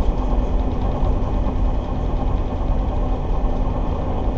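Towboat engines running steadily: a low rumble with a constant hum over it.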